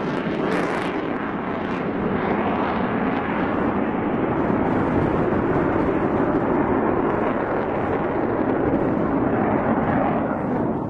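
F-15 fighter jet passing overhead: loud, steady jet-engine noise whose upper hiss drops away about a second in, leaving a duller rumble.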